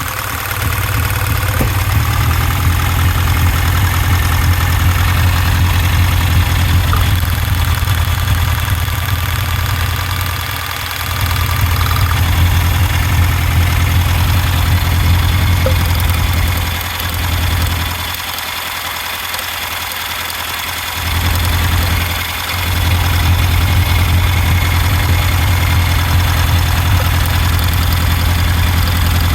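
Engine idling with a misfire on cylinder 4: a steady low running drone that falls away briefly a few times, longest for about three seconds just past the middle.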